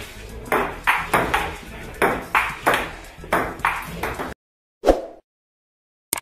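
Table tennis rally between a player and a ping pong robot: the celluloid ball clicks in quick alternation off the paddles and the table, several strikes a second, then stops abruptly about four seconds in. About a second later a short dull thump.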